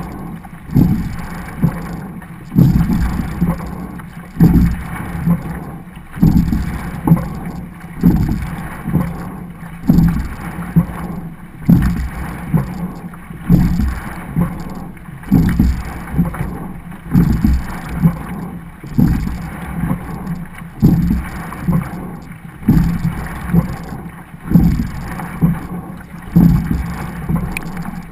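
Racing double scull under way, heard from the bow deck: water rushing along the hull, with a sharp pulse and surge at each stroke, about one stroke every 1.8 seconds.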